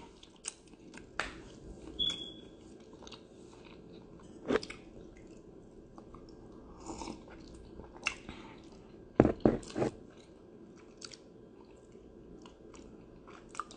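A person sipping and swallowing tea from a mug close to the microphone, with small wet mouth clicks between sips. A quick run of three louder sips comes a little after nine seconds in.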